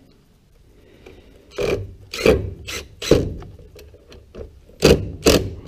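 Makita cordless driver driving screws into a wooden frame in short trigger bursts: a group of four about one and a half to three seconds in, then two or three more near the end.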